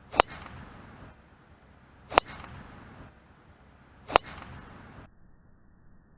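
Golf club striking a ball three times, each a sharp crack about two seconds apart, followed by a short softer rush.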